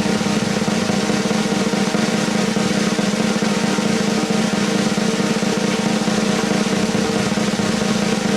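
Steady snare drum roll, played as a suspense cue while the dice are rolled.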